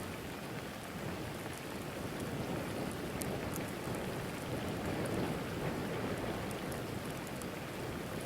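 Steady rain in a storm, with scattered sharp ticks of drops hitting close by.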